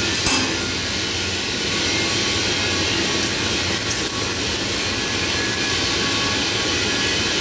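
Stick (shielded metal arc) welding on steel plate: the electrode's arc gives a steady crackling hiss, with a short sharp crack near the start.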